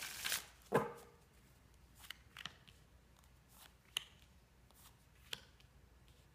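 A deck of oracle cards is bridged back together with a brief riffle and a sharp snap just under a second in. Then single cards are laid down on a padded cloth surface, giving a few faint, spaced clicks.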